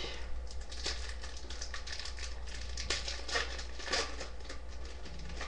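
Foil wrapper of a hockey card pack crinkling and crackling as it is opened and handled, with irregular clicks and rustles.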